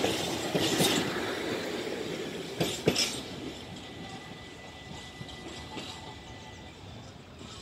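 A train running by on the track, its wheels knocking over rail joints a few times, loudest near three seconds in. The running noise fades steadily as the train moves away.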